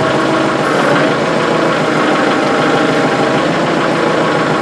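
Tractor engine running steadily at an even speed while it powers the hydraulics that cycle the top-link cylinder.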